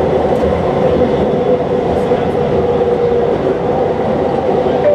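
SkyTrain metro train running at speed on its elevated guideway, heard from inside the front car: a steady rolling rumble with a linear induction motor whine that fades about three seconds in.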